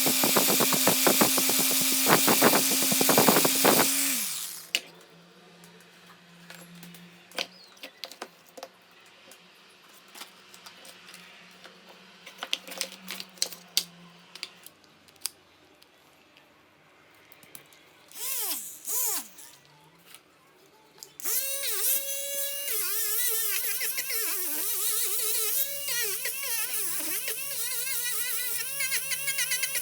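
Small electric power tool working on rusty metal parts. It runs with a steady whine and rapid scraping clicks for the first four seconds, then stops; scattered clicks and knocks of parts being handled follow, with a brief spin-up about two-thirds through. From about three-quarters through it runs again, its whine wavering up and down in pitch.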